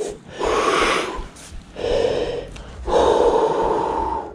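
A person blowing out three long, heavy breaths, each lasting about a second, with the last one the longest.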